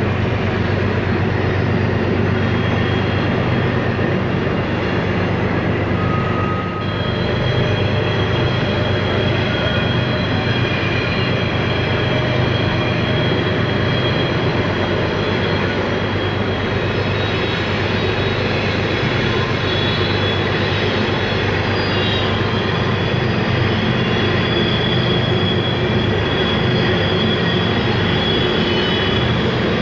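Long Canadian Pacific freight train passing, with the steady drone of diesel locomotives and the heavy running of steel wheels on rail, and thin steady high squealing tones over it, likely wheel flanges on the curve. The sound holds steady throughout, with a brief slight dip about seven seconds in.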